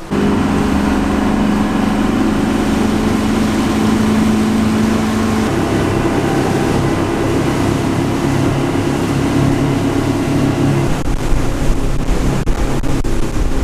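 Motorboat engine running under way at speed, its pitch stepping up about halfway through. A few sharp knocks or thumps come near the end.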